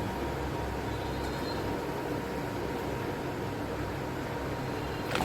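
Steady low hum and hiss of room background noise, with a faint steady tone, and a single short click near the end.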